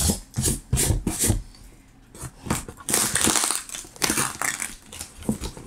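A cardboard box and its packing being handled: a run of irregular rustles, scrapes and knocks, with a longer rasping stretch about three seconds in.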